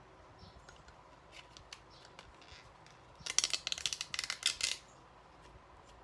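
Crinkling of a small chocolate bar's wrapper being handled and pulled at, a dense crackly burst lasting about a second and a half, starting about three seconds in after a few faint taps.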